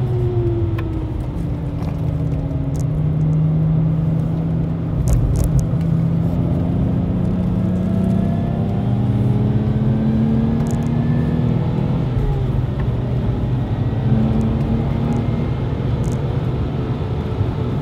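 Supercharged Lexus IS200's straight-six engine pulling hard, heard from inside the cabin with tyre and road noise beneath. The revs fall at the start, then climb slowly and steadily. They dip about twelve seconds in, then climb again.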